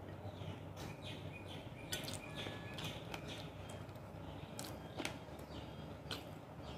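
Quiet eating sounds: a person chewing with the mouth closed, with a few short sharp clicks, under faint bird chirps.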